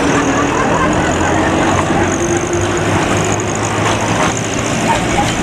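A 1930s narrow-gauge passenger railcar running as it pulls away along the track: a steady engine drone whose note rises a little as it gathers speed.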